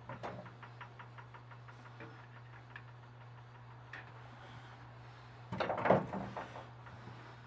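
Hand tools and metal parts being handled on a small antique metal lathe: a quick, even run of light clicks for about two seconds, a few single clicks, then a louder clatter of metal knocks about five and a half seconds in, over a steady low electrical hum.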